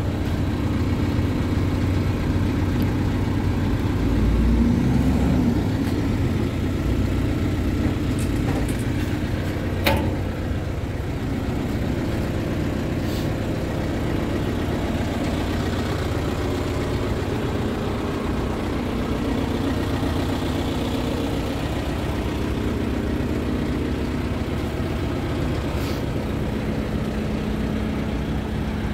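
Scania P230 truck's diesel engine idling steadily. About ten seconds in, one sharp click sounds, as the steel storage box under the body is opened.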